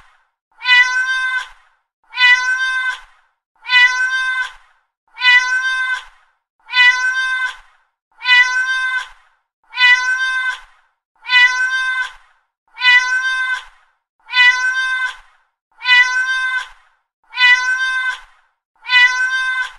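Domestic cat meowing: the same single meow, about a second long and fairly steady in pitch, repeated over and over at an even pace of about one every second and a half.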